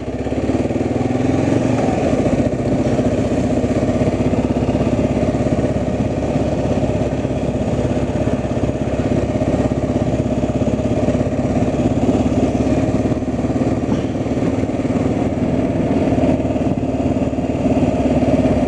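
An engine running steadily at an even speed, a constant low hum with a steady pitch throughout.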